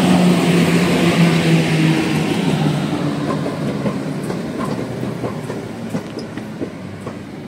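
Electric passenger train pulling in past the platform, led by an EP09 locomotive with a Vectron coupled behind it: a steady hum that stops about two seconds in, then wheels clicking over rail joints as the coaches roll by. The sound fades as the train slows.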